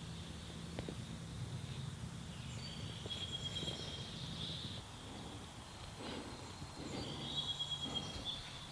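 Wild birds singing in woodland: high trills come about three seconds in and again near the end, over a low steady background hum.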